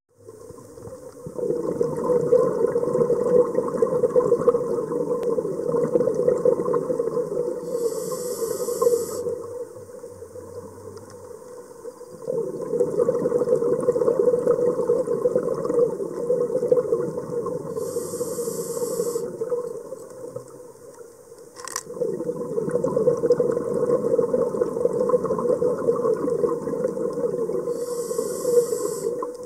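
A scuba diver's regulator breathing, heard underwater through the camera's housing. There are three long exhalations of rumbling bubbles, each ending in a short hiss of inhalation and a brief lull, about one breath every ten seconds. A single sharp click comes about two-thirds of the way through.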